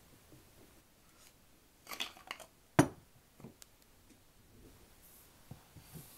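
A wooden lidded canister set down on a table: a few light clicks of handling, then one solid knock near the middle, followed by a couple of smaller taps and soft touches near the end as it is gripped again.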